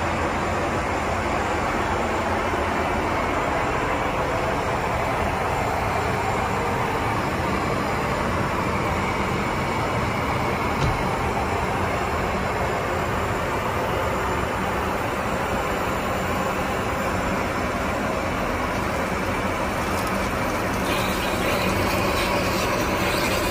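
Steady cabin noise inside an Airbus A380 airliner, an even rush that holds level throughout, with a single click about eleven seconds in.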